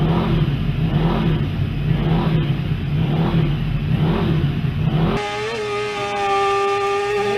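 Racing motorcycles passing one after another at speed, each engine note rising and falling, for about five seconds. The sound then cuts abruptly to a steady, held droning tone.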